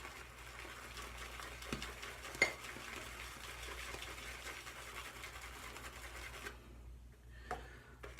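Synthetic shaving brush swirling and whipping lather against soap in a lathering bowl, a soft steady scrubbing with a few light taps, pausing briefly near the end.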